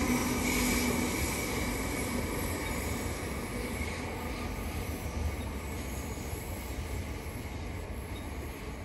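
Electric commuter train running away down the line, its noise fading steadily. A steady hum dies out in the first second or two.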